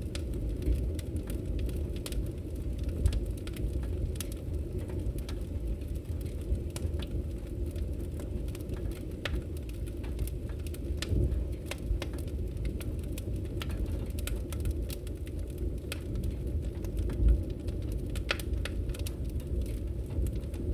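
Fire crackling: irregular sharp pops and snaps over a steady low rumble, with a few louder pops.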